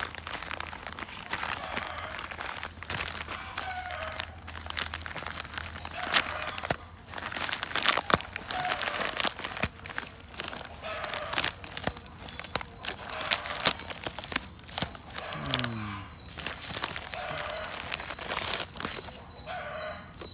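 Hands crinkling and tearing open a plastic courier mailer bag, in sharp rustles and rips. A rooster calls over and over in the background, about every two seconds.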